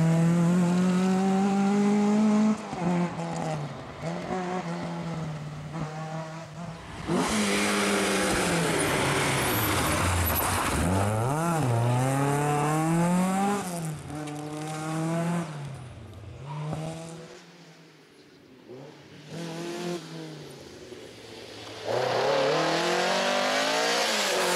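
Rally car engines at full throttle as the cars pass one after another, the revs climbing and dropping sharply at each gear change and lift. The loudest pass comes in the middle, with a deep dip in revs through a bend before the car pulls away. The engine note fades off, and another car comes in loud near the end.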